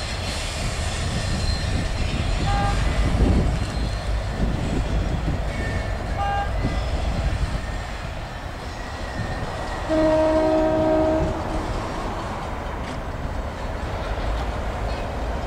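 Two EMD GP9RM diesel locomotives rumbling as they move slowly through the yard. About ten seconds in, the locomotive horn sounds once for just over a second. Earlier there are two very short high tones.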